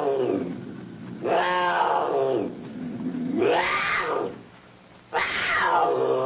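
Leopard calling: a run of drawn-out roars, each about a second long, rising and then falling in pitch, repeated roughly every two seconds.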